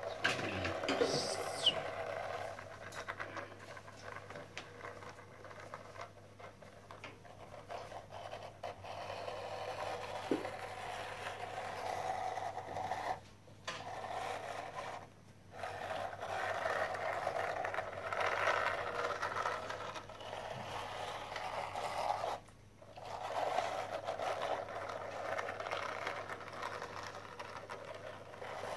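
Plastic toy car-carrier truck pushed by hand along a tiled floor: a steady whirring scrape of its wheels rolling on the tile, broken by three short pauses.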